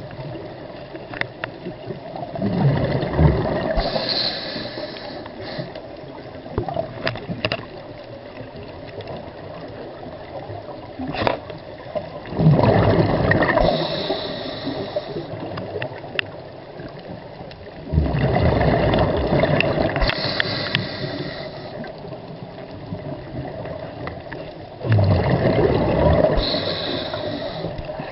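Scuba regulator breathing underwater: four breaths a few seconds apart, each a loud rush of bubbles with a brief high hiss, and quieter water noise with faint clicks between.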